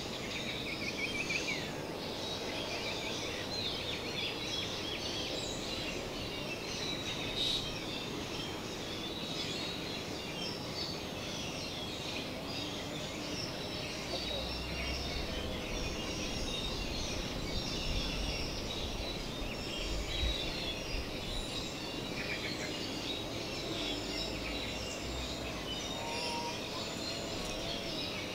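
Forest ambience: many birds chirping and calling together in a steady, dense chorus, with a low rumble for several seconds in the middle.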